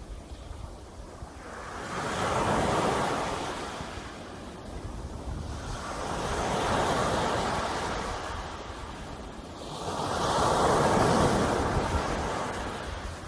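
Sea waves breaking and washing on the shore, three swells of surf about four seconds apart, with a low rumble between them.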